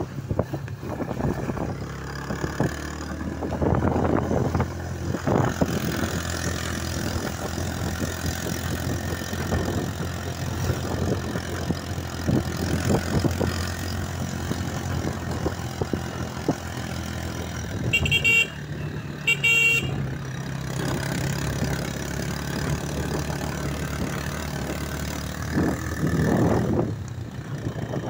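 Motorcycle engine running steadily while riding, with a horn giving two short beeps about two-thirds of the way through.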